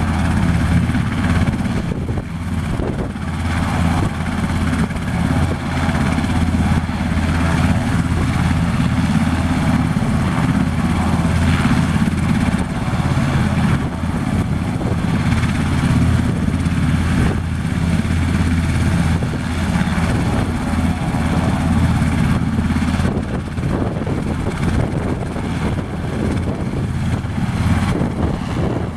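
Sikorsky S-92 search-and-rescue helicopter running on the ground with its rotors turning: its twin turbine engines and rotors make a steady, loud sound with a hum of fixed tones.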